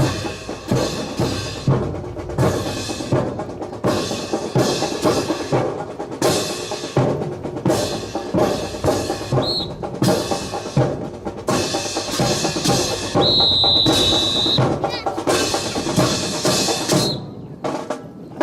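A drill squad working in unison: a rhythmic run of sharp claps, knocks and thuds from their synchronized drill movements. A high steady tone, like a whistle, sounds for about a second and a half a little past the middle.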